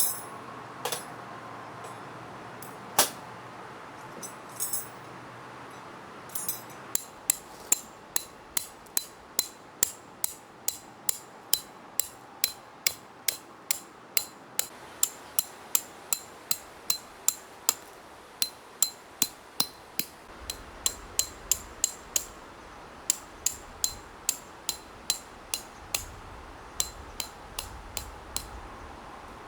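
Hammer blows driving tent pegs: a few scattered clinks, then a steady run of sharp strikes about two a second, broken by short pauses.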